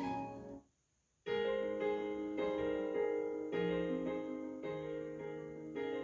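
Recorded music from Revel M126BE bookshelf speakers, with a beryllium tweeter and a ceramic woofer: the end of a female-sung track fades out, there is a brief silent gap about a second in, then a new track begins with piano chords.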